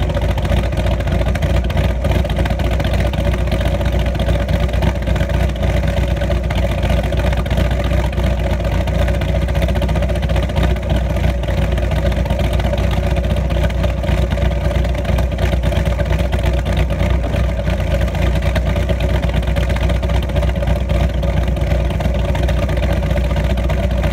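1996 Dodge Viper GTS's V10 engine idling steadily through a Corsa exhaust, heard from just behind the twin center tailpipes.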